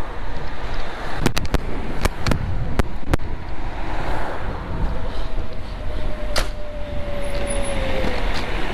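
Wind and road rumble while riding a small electric motorbike in slow town traffic. Several sharp clicks come in the first few seconds and one more later on. A thin steady whine runs through the second half and dips slightly near the end.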